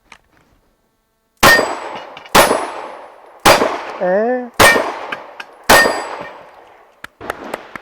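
Five pistol shots fired at an even pace, about one a second, each followed by a ringing echo that fades before the next. A short vocal sound comes between the third and fourth shots, and a few light clicks near the end.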